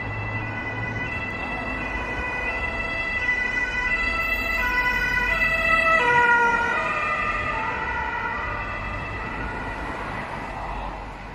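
Ambulance's two-tone siren passing on the road, growing louder to a peak about six seconds in, its pitch dropping as it goes by, then fading, over the low rumble of road traffic.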